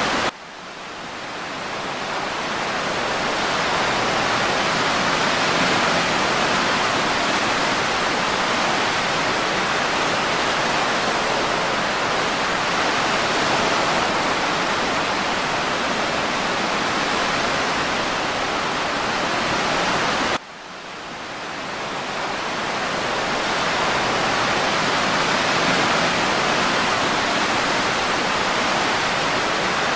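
Steady rushing noise of an ocean-surf-and-breeze ambience track, even in level without distinct wave swells. It cuts out abruptly twice, just after the start and about twenty seconds in, and each time fades back up over a few seconds.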